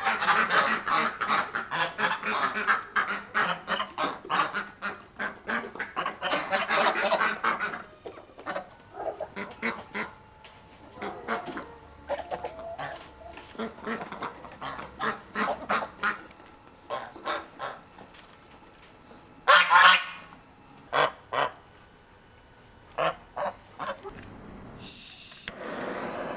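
Geese honking: a dense burst of overlapping calls for the first eight seconds or so, then scattered single honks, with one loud call about twenty seconds in. A rushing noise starts near the end.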